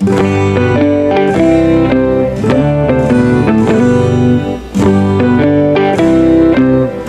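Background music: an instrumental melody of short stepping notes over held low notes, with a brief lull about five seconds in.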